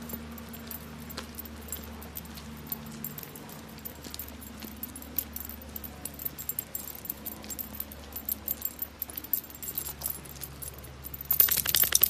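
Metal tags and leash clip on a dachshund's collar jingling lightly as it trots on a leash, then a fast, much louder jangle near the end as the dog shakes its head.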